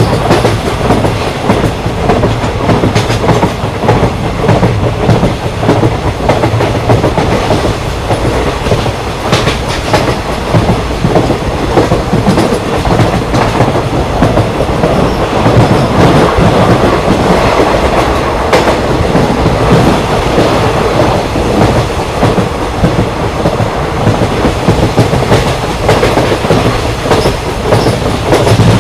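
An Indian Railways ICF passenger coach running steadily, heard on board: a continuous rumble of the running gear with the wheels clattering and knocking over the rail joints.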